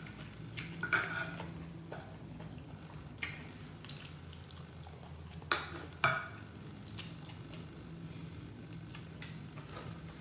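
Wooden chopsticks clicking against a ceramic plate as food is picked up, with chewing in between. There are several sharp clicks, the loudest about a second in and about six seconds in, over a steady low hum.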